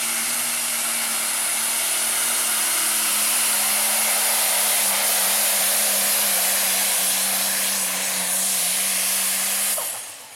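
Pulling semi truck's diesel engine running hard as it drags the weight sled, black smoke pouring from its stack. It is a loud, steady engine sound with a high hissing whine on top, and its pitch sags slightly under the load. Just before the end it falls away sharply.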